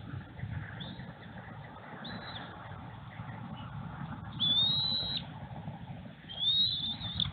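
Bald eagles calling at the nest: a few short high peeps about two seconds in, then two longer high whistled calls, each close to a second, about halfway through and near the end, over a steady low background rumble.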